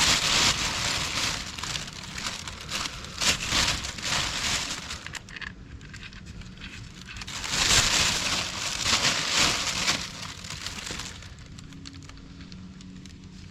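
Rustling, crinkling handling noise in two long spells with a few light clicks, as of something being handled while gas pipe fittings are worked on.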